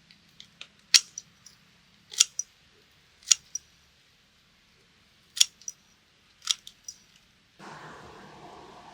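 A series of sharp clicks, about five loud ones roughly a second apart with fainter ones between them. A rustling noise starts near the end.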